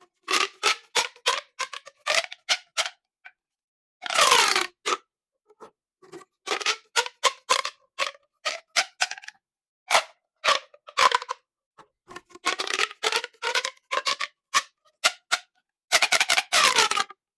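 Plastic pop tubes being stretched and squeezed, giving runs of short pitched pops and ribbed clicks. Two longer rasping sweeps, about four seconds in and near the end, fall in pitch.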